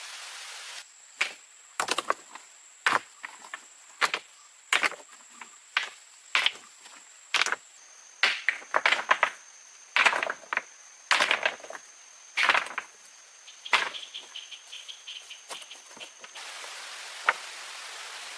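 A blade chopping into wood, with sharp strokes coming irregularly at about one a second, over a steady high insect trill. Near the end the strokes give way to an even rushing of water.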